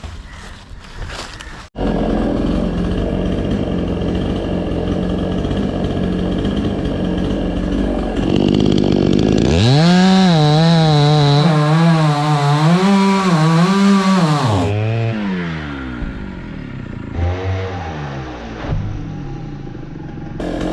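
Two-stroke chainsaw running steadily, then revved up sharply about ten seconds in. It is held at high revs with the pitch wavering up and down for about five seconds, then drops back to a lower speed with a couple of short blips of throttle.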